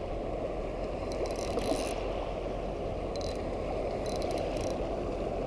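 Spinning reel clicking in short runs of rapid, fine clicks, several times, while a hooked fish is being fought. Underneath is a steady low rushing noise.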